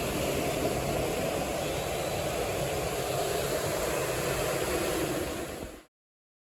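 Waterfall rushing: a steady, even rush of falling water that cuts off abruptly near the end.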